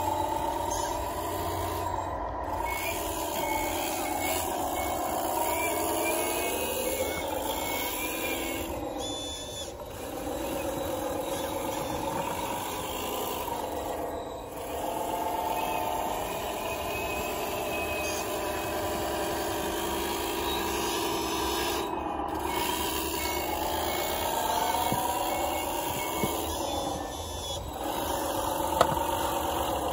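Radio-controlled 1/14 hydraulic wheel loader working, its electric motors and hydraulic pump whining and rising and falling in pitch under load as it pushes snow, with a reversing beeper sounding in stretches.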